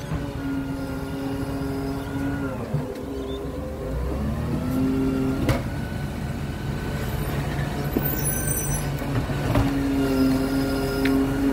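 Side-loading garbage truck with its engine running, the engine note rising and holding in three stretches as it powers the hydraulic lifting arm reaching out to the bins. A single sharp clack sounds about halfway through.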